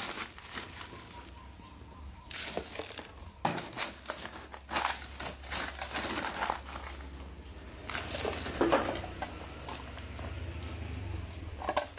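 Crushed ice poured from a plastic bag into a plastic cooler box and pressed down by hand around dessert cups: uneven bursts of crunching, rattling ice and crinkling plastic bag.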